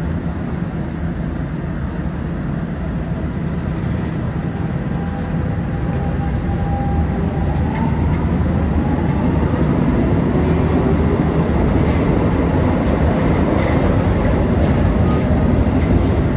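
Lisbon Metro train pulling away from a station and accelerating into the tunnel, heard from inside the car: a steady rumble of wheels on rail that grows louder, with a motor whine rising in pitch from about halfway through.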